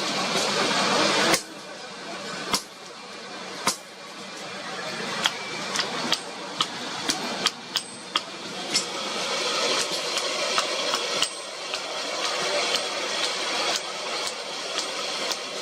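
Hammer striking hot wrought iron on an anvil: a dozen or so sharp, irregularly spaced metallic blows, each with a brief ring, over steady street traffic noise. A loud rushing noise cuts off suddenly about a second in.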